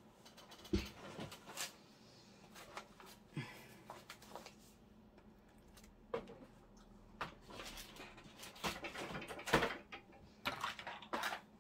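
Scattered quiet clicks, taps and rustles of small craft supplies being handled while looking for eyelets.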